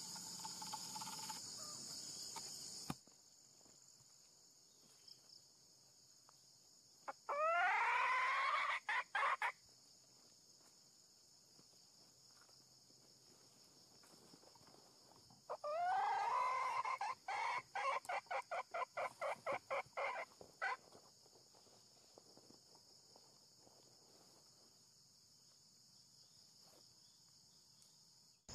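Junglefowl calling twice: each call is a rising, drawn-out cry that breaks into a quick run of clucks. A high, steady insect buzz runs underneath and drops away sharply after about three seconds.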